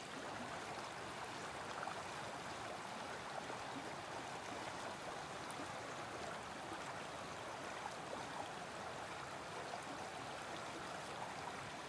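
Shallow, stony creek running over rocks: a steady rush of water.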